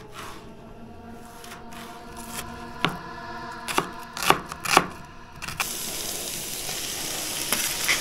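Camp cooking: four sharp knocks of a utensil against a pot in the middle, then a steady sizzling hiss from about five and a half seconds in.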